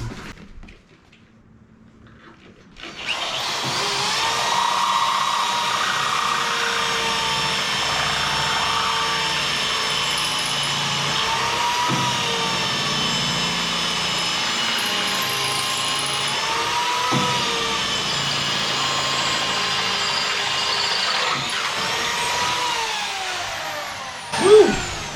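Power drill with a metal bit boring through the steel tube frame of a side-by-side, running steadily under load for about twenty seconds with a wavering whine after a quiet start. The bit is worn after four holes.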